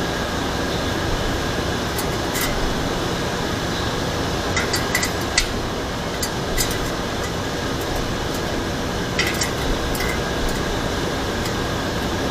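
Scattered light metallic clicks and clinks of hand tools working on a bicycle part, irregular and sparse, the sharpest about halfway through, over a steady fan-like background noise.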